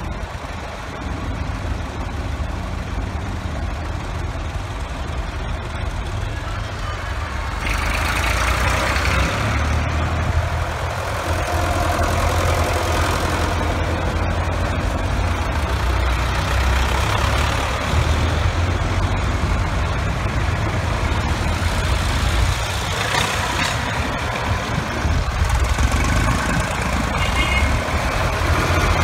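Engines of a line of vintage tractors running as they drive slowly past one after another: a steady low engine drone that gets louder about eight seconds in as nearer tractors pass.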